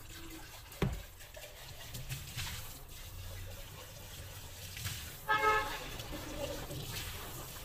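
Tap water spraying from a pull-down kitchen faucet onto and into a small appliance jug being rinsed over a stainless-steel sink, with a knock about a second in. About five seconds in, a brief horn-like toot cuts in, the loudest sound here.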